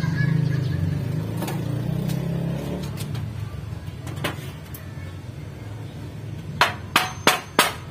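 Four quick, sharp hammer blows near the end, about a third of a second apart, with a few lighter knocks before them. A low engine drone fades out over the first three seconds.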